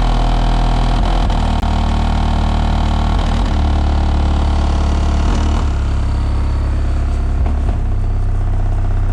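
Very loud low bass test tones from a 10-inch Kicker Q-Class L7 subwoofer in a custom horn enclosure, heard inside the car. The deep note holds steady and shifts to a new pitch every couple of seconds, with a buzzy haze of distortion and rattle above it.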